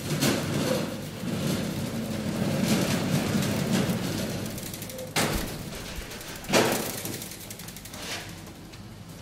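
A stainless-steel rack trolley loaded with stacked mouse cages being pulled out and wheeled across the floor: a rumble of wheels with the cages rattling, and two sharp metallic knocks a little past halfway, about a second apart.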